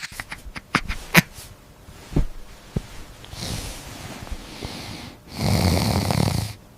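Maltipoo puppy snuffling and snorting right at the microphone, with a few knocks and bumps against it at first, then louder breathy sniffing near the end.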